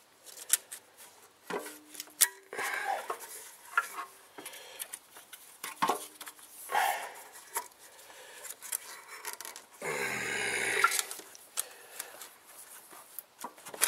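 Scattered clicks and metal clinks from pliers and hands working on the engine, with rubbing and scraping as a spark plug wire boot is worked loose.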